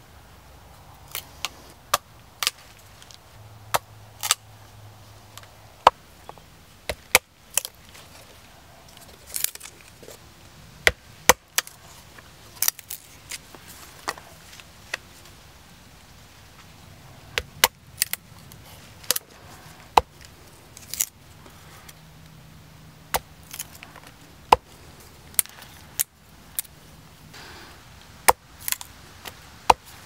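Knife blade (a Mora Garberg) shaving curls down a thin wooden stick pressed against a log to make a feather stick: a string of short, sharp scrapes and clicks at irregular intervals, roughly one every second.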